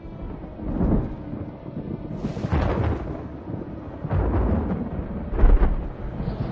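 Thunder rolling from a severe thunderstorm: a continuous low rumble that swells into four loud claps about a second or more apart, the loudest near the end.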